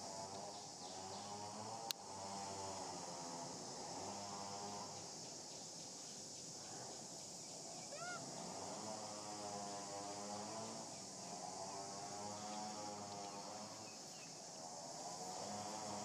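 Outdoor insect chorus: a steady high-pitched buzzing drone, under it a lower hum that swells and fades every few seconds. A sharp click comes near 2 seconds, and a few short bird chirps about halfway through.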